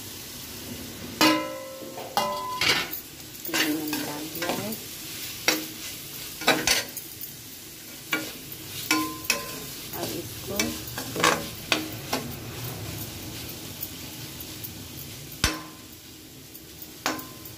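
A steel spoon stirs fried okra into frying masala in a metal kadhai: repeated metal-on-metal scrapes and clinks, irregularly about once a second, over a light sizzle.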